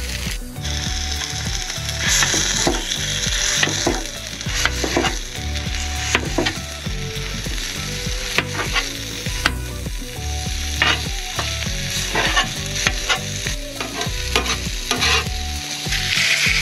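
Sausage and eggs sizzling on a propane Blackstone flat-top griddle, with repeated sharp clacks and scrapes of a metal spatula against the steel cooktop as the sausage patties are chopped into crumbles.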